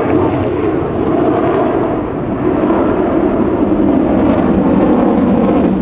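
Jet engine noise from military aircraft flying in formation: a loud, steady rush with no clear pitch, heaviest in the low-to-mid range.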